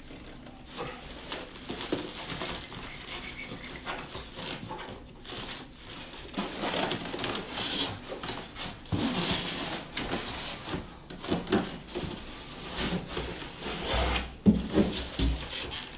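Hands handling a newly unpacked monitor and its packaging: irregular rubbing, rustling and scraping as a piece is pulled off, with scattered knocks and one sharper knock about 14 seconds in.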